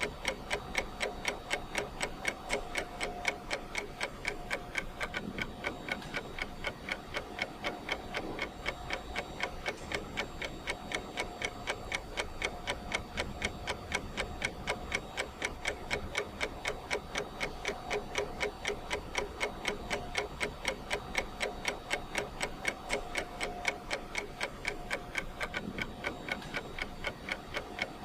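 Ticking clock sound, an even run of sharp ticks, a few every second, that counts down a timer.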